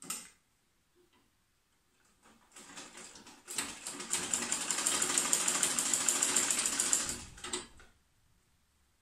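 A household sewing machine, over 40 years old, stitching a seam. It starts slowly about two seconds in, picks up to a fast, steady run of stitches, then slows and stops near the end. A short click comes right at the start.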